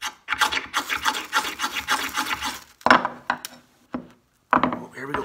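A knife scraping rapidly along a fire steel (ferrocerium rod) for a couple of seconds, then several separate harder strokes, striking sparks onto wax-soaked napkin tinder.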